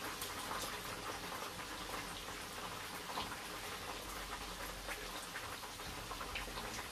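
Quiet, steady sizzle of hot oil with small scattered crackles: chicken pieces deep-frying for the second time.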